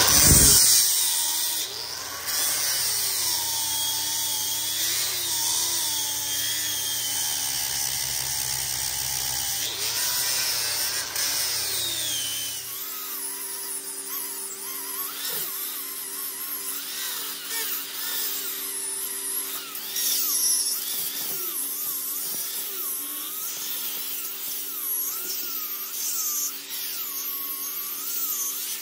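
Milwaukee right-angle die grinder with a small 2-inch wheel grinding the steel face around a link's bore, a continuous high whine whose pitch wavers as the wheel is pressed on and eased off. It is dressing down high spots and scratches on the face.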